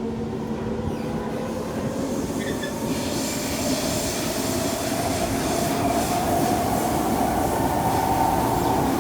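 Kawasaki C151 metro train running in a tunnel: steady wheel-on-rail rumble under a motor whine that slowly rises in pitch, with a hiss that grows from about three seconds in as the noise gets gradually louder.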